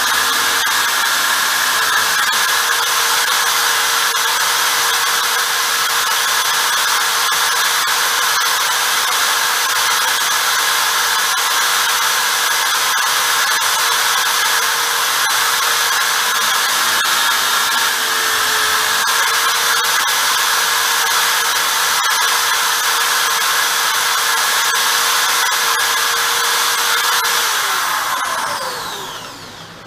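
Corded electric drill running steadily at full speed with a center drill bit, marking hole centers into a wooden disc. Near the end it is switched off and winds down, its pitch falling.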